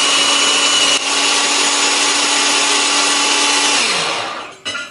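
Electric food chopper's motor running steadily, its blade churning a wet tofu-and-egg batter. About four seconds in it is switched off and winds down with a falling pitch, and a small click follows.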